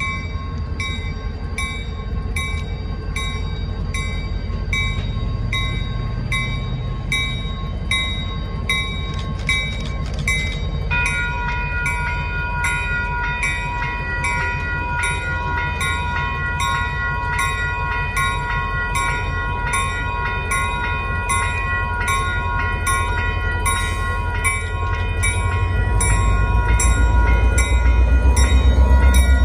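Diesel locomotive departing with passenger coaches, its bell ringing steadily about twice a second. About a third of the way in, a held chord of the horn joins the bell, and near the end the engine's low rumble grows louder as the locomotive passes close by.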